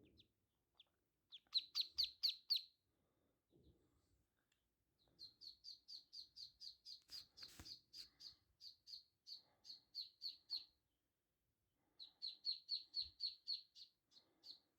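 Three-day-old ducklings peeping: quick runs of short, high peeps, about five a second, in three bouts. The first bout is the loudest.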